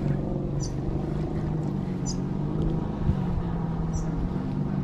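A motor's steady low hum, with a short high chirp repeating about every second and a half.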